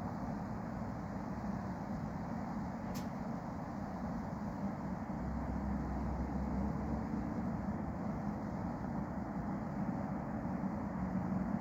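Steady low background rumble with a faint hum, with no distinct event standing out.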